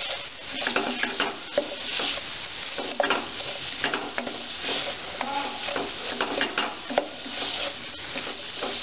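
Chopped onions and green chillies sizzling in oil and butter in a pan while being stirred, with frequent short scrapes and clicks of the stirring utensil against the pan over a steady frying hiss.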